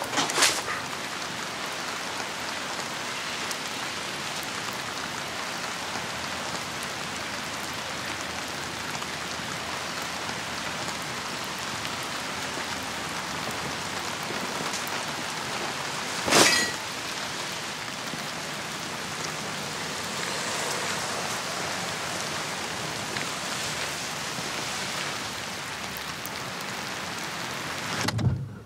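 Steady rain falling on pavement, with a sudden sharp noise about sixteen seconds in; the rain cuts off just before the end.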